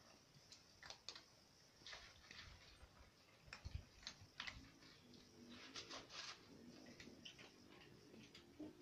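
Several cats eating from food bowls: faint, irregular crunching and clicking of chewing.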